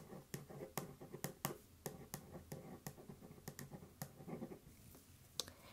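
Writing on paper: an irregular run of sharp ticks and taps, several a second, thinning out after about three and a half seconds.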